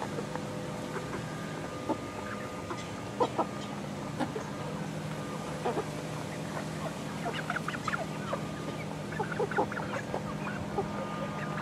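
Flock of 11-week-old chickens clucking in short, scattered calls, busiest about two-thirds of the way through, over a steady low hum.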